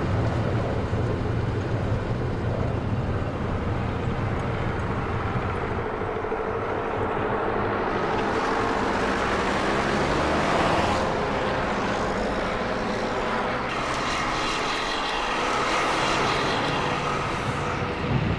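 A bus driving along a highway: a steady engine drone with road and wind noise. In the second half the rushing noise swells twice as traffic passes.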